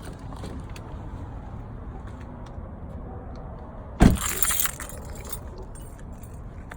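Steady low rumble of a car, with a few faint ticks and a loud sudden rattle about four seconds in that lasts under a second.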